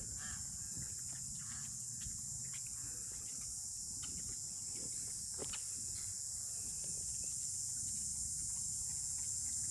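A steady, high-pitched insect chorus drones without a break, over a low rumble of wind on the microphone.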